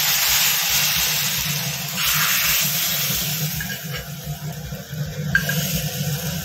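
Hot oil tempering poured from a small pan into simmering sambar, hissing and sizzling in two spells over the first three seconds, then dying down. A steady low hum runs underneath.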